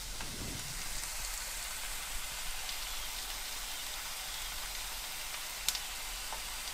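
Eggs frying on top of potatoes, onions and weeping bolete mushrooms in a frying pan: a steady high sizzle, with a sharp pop near the end.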